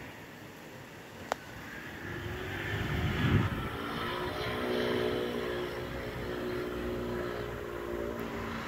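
An engine running steadily, growing louder about two seconds in and holding a steady, even pitch. A single sharp click comes about a second in.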